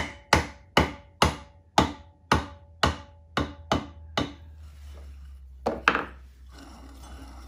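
Hammer tapping a bushing down into the pulley housing of a Walker Turner drill press head: about a dozen light metallic taps, roughly two a second, growing softer about four seconds in, then two more just before six seconds. A low steady hum remains after the tapping stops.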